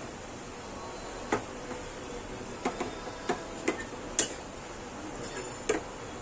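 A spoon clicking and knocking against a cooking pan while minced mutton is stirred: about seven sharp clicks at uneven intervals, over a steady low hiss.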